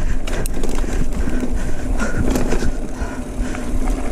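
Mountain bike rolling over a dirt trail: tyre noise with a low rumble, scattered rattling clicks from the bike and a steady hum.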